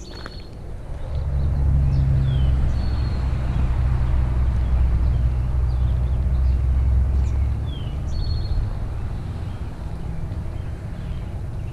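A motor vehicle's engine drones, building up about a second in, holding steady, then fading away after about eight seconds. Birds chirp with short, high, falling calls.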